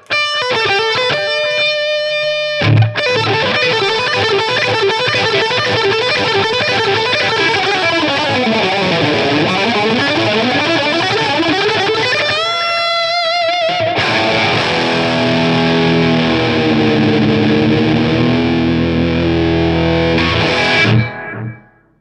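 Distorted high-gain electric guitar lead from a 1992 PRS CE24 fitted with Gibson 57 Classic humbucker pickups. It plays quick phrases and a held note with vibrato, then a long sustained chord that stops about a second before the end.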